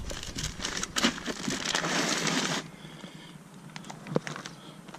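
Plastic Ziploc bags full of fish crinkling and rustling as they are handled and lifted out of a plastic cooler, dense for about two and a half seconds, then a few scattered clicks and knocks.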